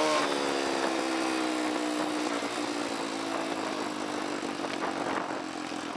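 Dirt bike engine running on a downhill trail, its note sinking slowly over the first few seconds and then holding steady at low revs.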